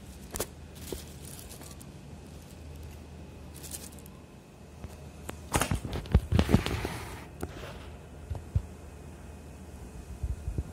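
Plastic bag being handled: scattered rustles and clicks, with a louder stretch of bumps and crinkling about six seconds in, over a steady low hum.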